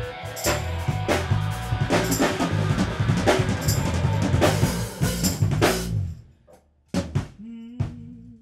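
Funk-rock band playing live: drum kit, bass and guitar. They stop dead about six seconds in, and after a short gap single drum hits and a low bass note come back in.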